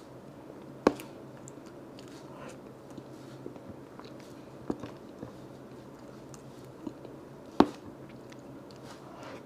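Close-miked eating: chewing and wet mouth sounds, with a few sharp clicks, the loudest about a second in and near the end.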